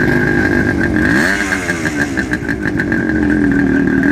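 Vintage motorcycle engine idling, with a brief blip of the throttle about a second in and the revs starting to lift again near the end. A steady high-pitched whine runs alongside.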